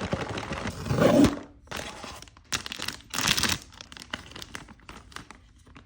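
A blind-box keychain package being torn open and handled: crinkling and tearing of the wrapping in irregular bursts, loudest about a second in and again around three seconds, dying down to small rustles near the end.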